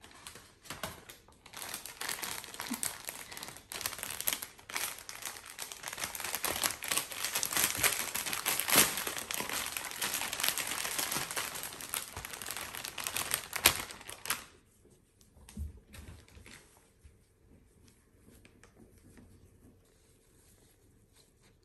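Packaging crinkling and rustling as it is handled, with some tearing. It starts about two seconds in and stops abruptly a little past the middle, leaving a few faint taps.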